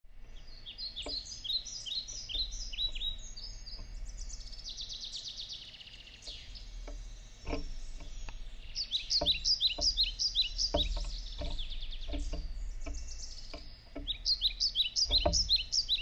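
Off-screen songbirds chirping in runs of quick, high, down-slurred notes, with a buzzy trill about four seconds in. Through the second half, sharp knocks of a scrub-jay's bill pecking seed on a wooden table.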